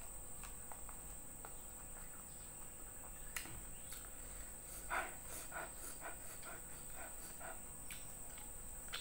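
Close mouth sounds of someone chewing a mouthful of rice and fried fish, with a run of short wet smacks from about halfway in, over a steady high-pitched insect trill.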